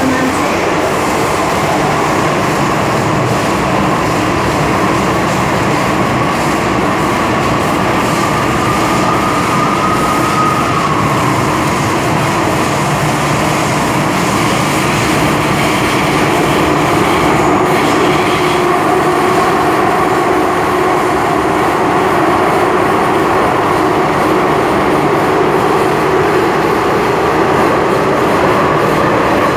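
Inside an MTR M-Train electric multiple unit car while it runs: a loud, steady rumble of wheels and running gear, with a whine that rises a little and then falls away about ten seconds in.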